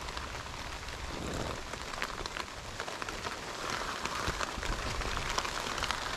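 Steady rain falling on a tarp and leaves, with many small scattered drop ticks.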